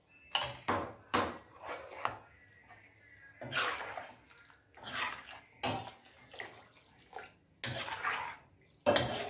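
Steel ladle stirring a thin, watery curry in a metal kadai: liquid sloshing and the ladle brushing the pan in a run of separate swishes.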